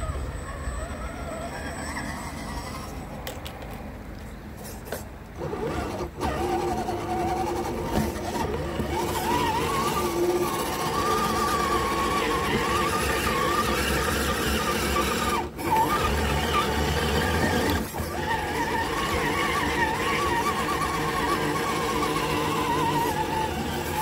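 Electric motor and gear drivetrain of an RC scale crawler whining, the pitch wavering up and down with the throttle. It gets louder about five seconds in and cuts out briefly three times.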